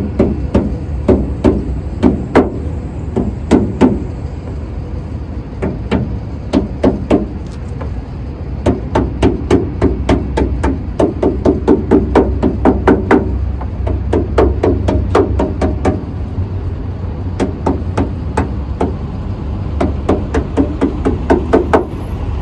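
Small hammer tapping a rubber edge-protection strip onto the edge of a car hood. The taps come in quick runs of about five a second, with short pauses between runs.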